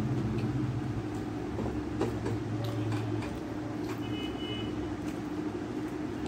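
A steady low hum, with faint soft clicks of fingers mixing rice on a steel plate; a brief high tone sounds about four seconds in.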